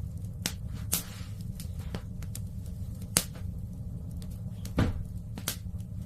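Wood fire in a fireplace crackling: sharp, irregular pops about every half second over a steady low rumble. The loudest pops come about three seconds in and just before five seconds.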